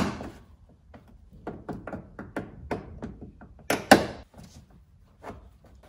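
Plastic clicks and taps from prying the Fiat Grande Punto's door trim panel away from the door with a pliers-type clip removal tool. There is a sharp click at the start, then a run of small ticks, and a loud double snap about four seconds in.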